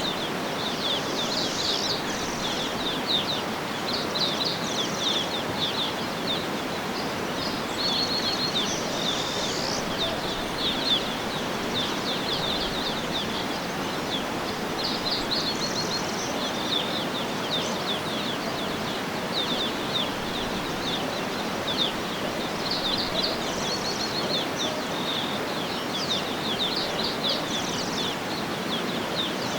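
Small birds chirping in quick repeated clusters of high, short notes over a steady rushing background noise.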